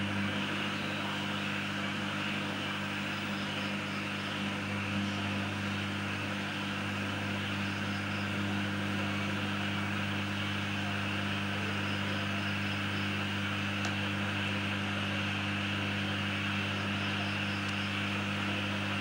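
Steady electrical hum under an even hiss from a powered-up home-built FM transmitter and its power supply, unchanging throughout.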